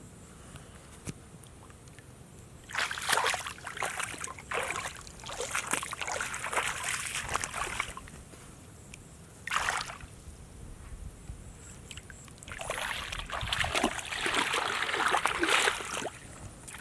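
Water splashing and sloshing in several irregular bursts: a long one a few seconds in, a short one near the middle, and another long one toward the end.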